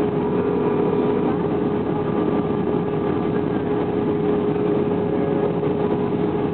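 Steady cabin noise inside an Airbus A321 in flight: a constant rush of engines and airflow with a steady hum tone running through it.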